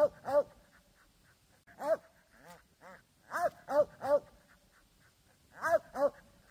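Squirrel dog barking treed at the foot of a tree: about eight short, ringing barks in clusters of one to three with pauses between, the bark that tells the hunter a squirrel is up the tree.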